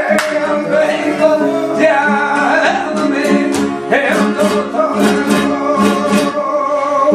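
Flamenco seguiriya: a man sings long, bending, held lines over a flamenco guitar, which punctuates the song with sharp strummed chords.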